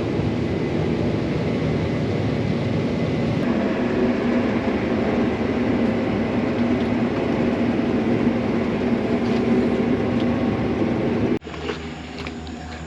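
Combine harvester running while harvesting corn: a steady engine and machinery drone at a slow ground speed. It cuts off abruptly a little after eleven seconds to a much quieter background with scattered clicks.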